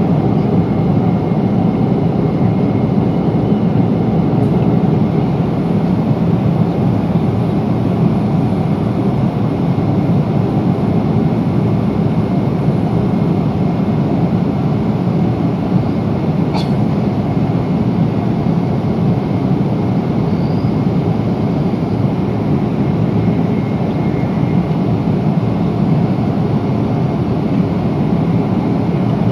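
Steady cabin noise of a Boeing 777-300 in cruise, the engines and the airflow over the fuselage heard from inside the cabin as a loud, even low rumble. A single brief click sounds about two-thirds of the way through.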